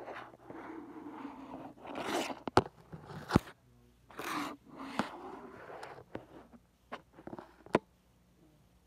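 Handling noise from a handheld phone: rubbing and scraping against the microphone, with scattered sharp knocks and clicks as it is moved about and covered. It goes quiet about a second before the end.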